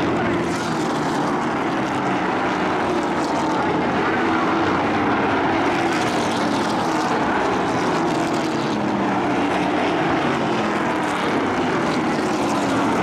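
Several short-track race trucks' engines running as they lap the oval, a steady drone whose pitch rises and falls as they come around.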